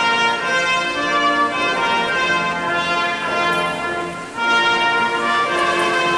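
Instrumental music of slow, sustained chords with a brass-like sound. There is a brief dip about four seconds in before a new chord starts.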